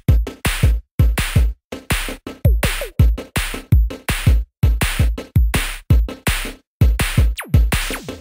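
Electronic intro music with a drum-machine beat: hard, choppy hits with a deep kick drum, cut by short silent gaps.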